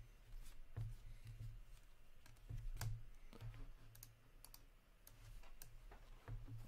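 Trading cards being handled and set down: scattered soft clicks and taps of card stock, over a faint steady low hum.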